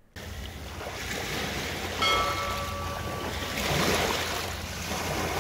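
Sea waves washing and breaking over rocks along the shore, a steady rushing wash, with a brief ringing tone about two seconds in.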